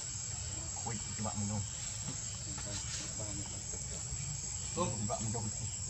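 Insects calling in the forest: a steady, high-pitched continuous drone, with faint low voices in the background about a second in and again near the end.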